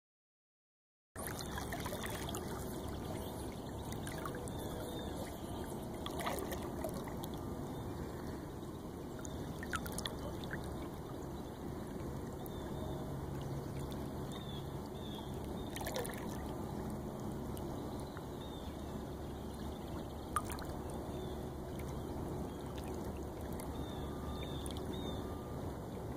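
River water trickling and lapping, steady throughout after a second of dead silence at the start, with a few faint clicks.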